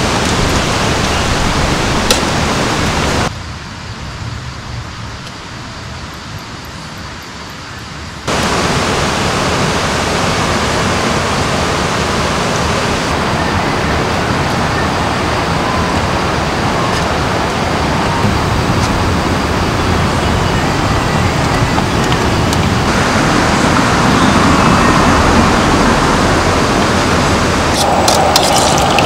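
Steady rushing noise of running water with no distinct events. It drops abruptly to a quieter level about three seconds in and returns to full level about five seconds later.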